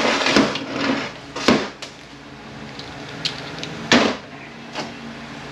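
Metal parts of a 231J transfer case being handled during teardown: a handful of short knocks and clanks, the loudest about four seconds in.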